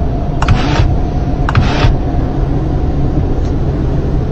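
Steady low rumble inside a car snowed in by a blizzard, with two short hissing swishes about a second apart in the first two seconds.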